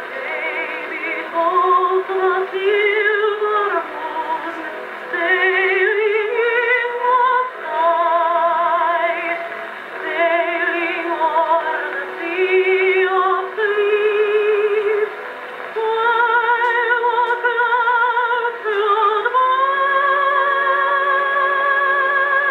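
Edison Diamond Disc record played acoustically on an Edison Jacobean cabinet phonograph: a contralto sings held notes with a wide vibrato. The sound is thin, with no top end.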